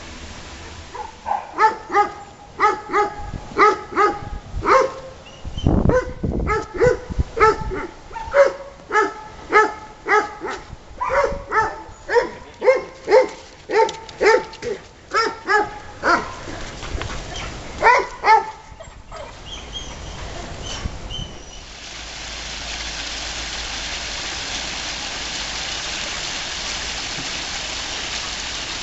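A dog barking over and over, about two barks a second, for most of the first twenty seconds; after that a steady hiss with no barking.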